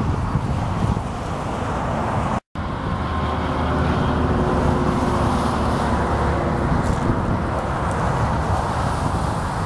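Highway traffic passing, a steady rush of vehicles with wind buffeting the microphone; a vehicle's steady hum rises out of it from about three to seven seconds in. The sound drops out for a split second about two and a half seconds in.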